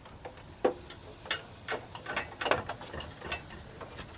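Irregular sharp clicks and light knocks of hand tools working on a television set's plastic and metal parts during teardown, about eight in a few seconds.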